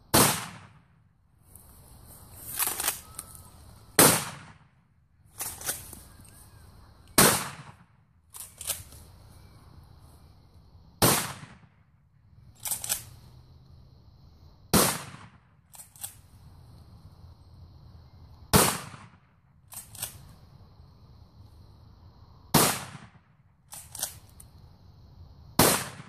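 12-gauge shotgun firing buckshot: eight loud shots about three to four seconds apart, with a quieter, sometimes doubled clack between each pair of shots.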